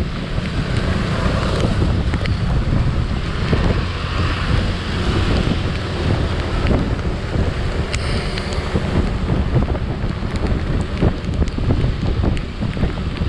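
Wind buffeting a motorcycle rider's camera microphone while riding an automatic scooter: a steady, heavy rumble with faint riding noise underneath and a few scattered small ticks.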